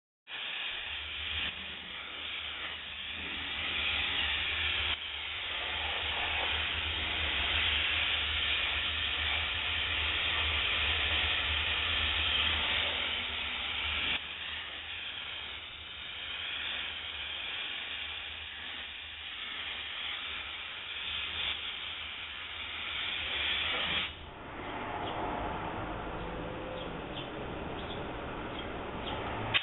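Optima DMF steam cleaner's wand jetting steam onto a vehicle's body panels: a loud, steady hiss with a low rumble underneath. The hiss eases off sharply about two-thirds of the way through.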